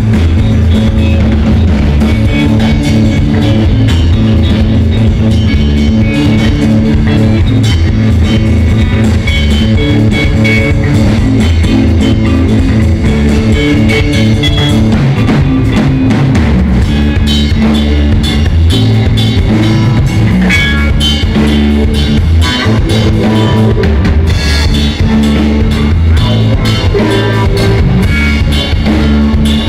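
A live rock band playing loud: electric guitars over a drum kit.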